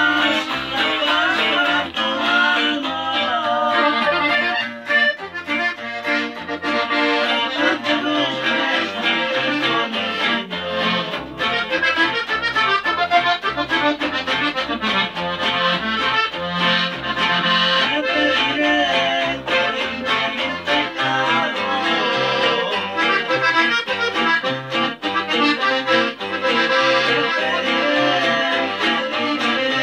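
Button accordion playing a melody, accompanied by guitar, in an instrumental passage of the song.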